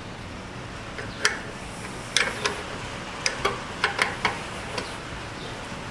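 Sharp metallic clicks and clinks of a wrench working the float-bowl nut of a carburetor, about ten irregular clicks spread over a few seconds.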